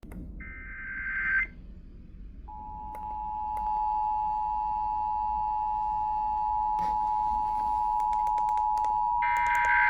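Emergency Alert System tones. First comes a roughly one-second burst of warbling digital header data. About a second later the steady two-tone EAS attention signal begins and holds. Near the end a second burst of header data sounds over the attention tone.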